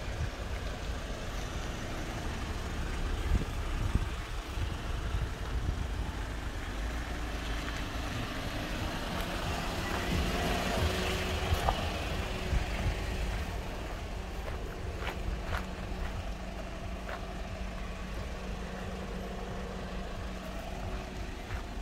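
Outdoor vehicle and traffic noise with a low, unsteady rumble. The noise swells near the middle as a vehicle passes, a faint steady hum comes in for the second half, and a few light clicks sound near the end.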